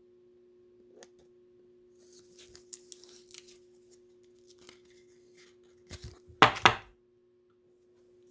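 Trading cards being handled and slid against one another: light rustling and small ticks, with one louder knock about six and a half seconds in. A faint steady low hum runs underneath.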